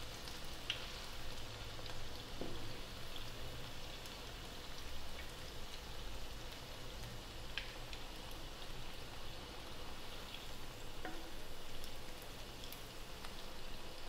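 Hot oil sizzling and bubbling steadily in a kadhai as a batch of vade (urad dal fritters) deep-fry, with a few faint ticks.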